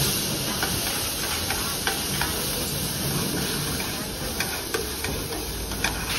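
Food sizzling and frying at a street-food stall: a steady hiss with scattered short clicks and clinks of utensils.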